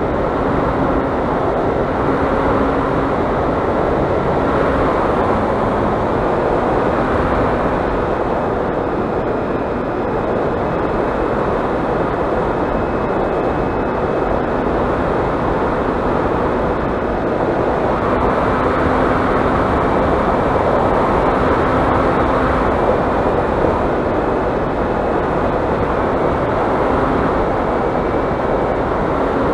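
Onboard audio from a flying RC delta wing in flight: a steady rush of wind over the airframe and microphone, with the fainter hum of its Emax 1200kv brushless motor and propeller, which shifts up and down in pitch now and then.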